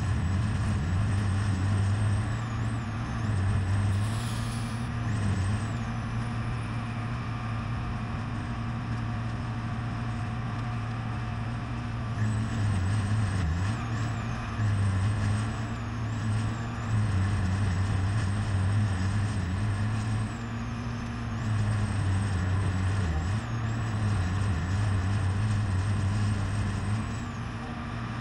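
A truck-mounted hay chopper grinding large square bales: its diesel engine runs steadily, the engine note dipping and recovering every few seconds under changing load, with a high whine coming and going.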